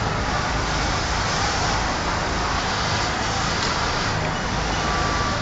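Steady mechanical din of industrial sewing machines and their motors running in a garment workshop, an even noise over a low hum.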